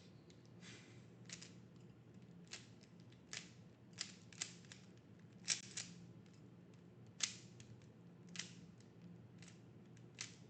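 A roughly ten-year-old 3x3 Rubik's-style speedcube being turned during a solve: irregular sharp clicks and clacks as the layers turn and snap into place, about one a second, some in quick pairs.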